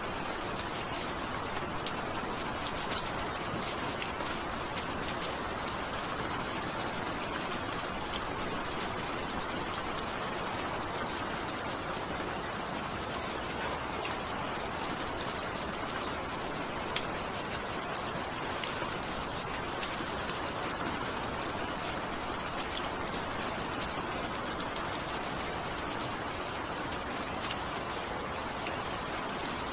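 Steady rain falling: an even hiss with scattered sharp ticks of single drops landing.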